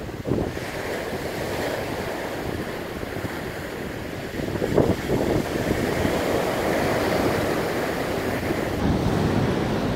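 Sea surf breaking and washing up a sandy beach, a steady rushing that swells louder about halfway through, with wind buffeting the microphone.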